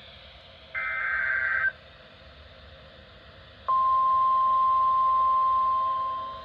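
Weather radio emergency alert: the last screechy burst of the SAME data header, about a second long, then after a two-second pause the steady 1050 Hz warning alarm tone starts sharply and holds, fading somewhat near the end. The tone announces a new warning about to be broadcast.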